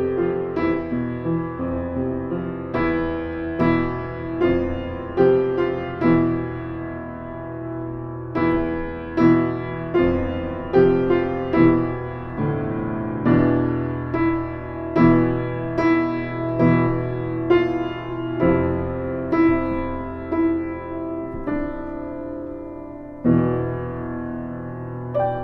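Background piano music: slow chords and notes struck about once a second, each left to ring and fade, with a louder chord near the end.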